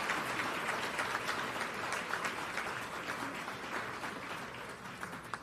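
An audience applauding, the clapping gradually fading away toward the end.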